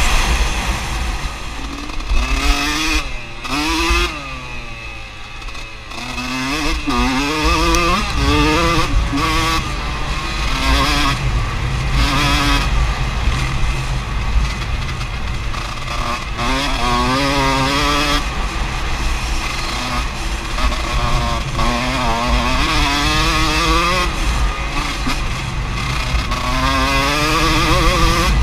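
Enduro motorcycle engine heard from on the bike, revving up and dropping back again and again through gear changes and throttle, with a quieter stretch about four to six seconds in where the throttle eases off. A steady low rumble lies underneath.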